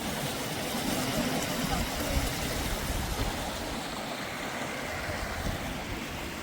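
Steady rushing of a stream's flowing water, with uneven low rumbling mixed in.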